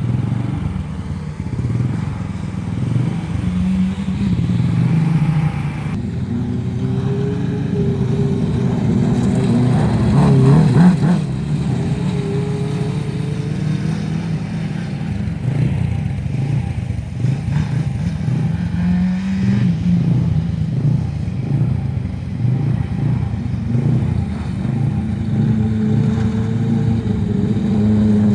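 600 micro sprint car's motorcycle engine running as the car laps, its pitch rising and falling over and over as the throttle opens and closes, loudest about ten seconds in.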